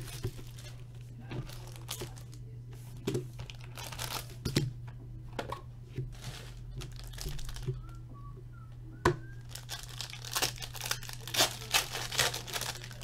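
Clear plastic shrink wrap being torn off a trading-card box and crumpled, in scattered crackles; later, a foil card pack crinkling densely as it is handled and opened. A steady low hum runs underneath.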